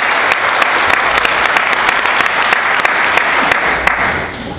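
Audience applauding, dense clapping with sharp individual claps standing out; it dies away near the end.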